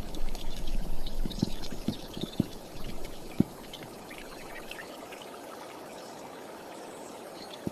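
River water splashing and sloshing, with several sharp knocks in the first few seconds, then settling into a steady rush of water.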